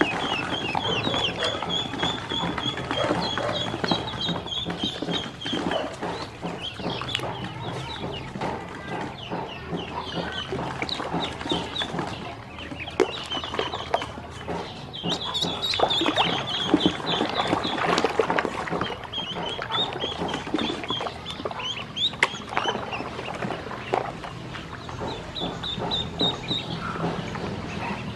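Ducklings peeping: a steady stream of short, high-pitched chirps from several birds at once, some held as quick runs of rapid peeps.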